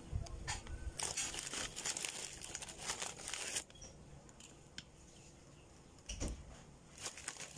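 Plastic wrapper of a graham cracker packet crinkling as crackers are handled and taken out, in a dense run of rustling for a couple of seconds, then quieter with short bursts near the end.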